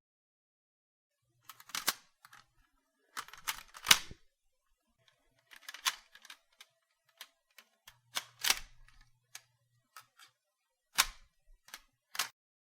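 Gun being reloaded: a string of sharp metallic clicks and clacks at uneven intervals as the magazine and action are worked, the loudest clack about four seconds in.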